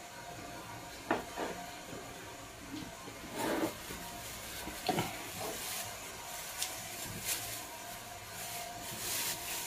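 Soft, scattered clicks and rustles of a plastic-gloved hand handling food over a steady background hiss: a few short sharp sounds about a second in, at three and a half seconds and at five seconds, and a brighter rustle near the end.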